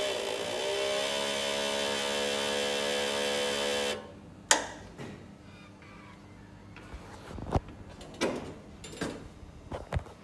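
DTF printer's internal motor running with a steady whine for about four seconds, rising slightly in pitch as it starts and then cutting off sharply. A sharp click follows, then scattered light clicks and knocks from the mechanism.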